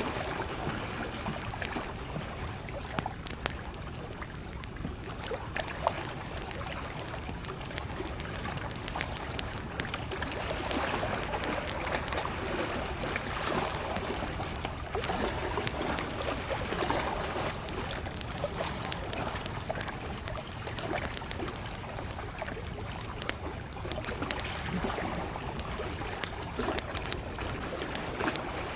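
Campfire crackling with frequent sharp, irregular pops, over small lake waves lapping steadily at the shore.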